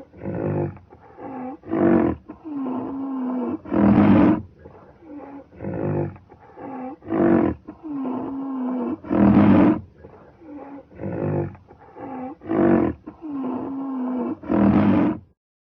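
Rhinoceros calling: a run of low, wavering calls and loud blasts, the same sequence heard three times over, stopping suddenly near the end.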